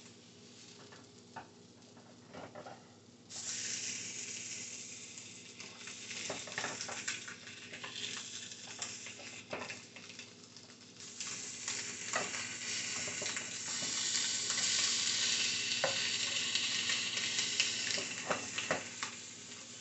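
Blackened tilapia fillets sizzling in a hot frying pan over medium-high heat as they are flipped with a spatula, with scattered taps and scrapes of the spatula against the pan. The sizzle comes up about three seconds in and grows louder about eleven seconds in.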